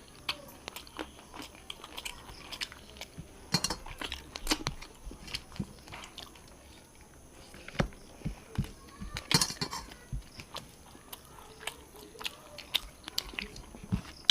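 Close-up eating sounds: chewing, mouth smacks and small crunches from someone eating a rice-and-fish-curry meal, as short irregular clicks. The louder clusters come about four and nine seconds in.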